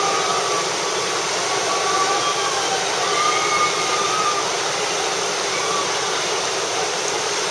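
Whitewater of a river rapid rushing in a steady, loud hiss as a raft surfs its wave, with a few faint voices calling over it.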